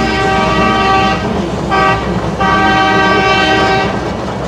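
Steam locomotive chime whistle blowing three blasts, long, short, long, ending the long-long-short-long grade-crossing signal, over the low rumble of the train.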